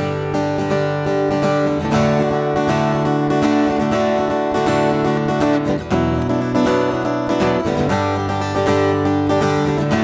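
Background music: an acoustic guitar instrumental playing sustained chords and notes, with a short break about six seconds in.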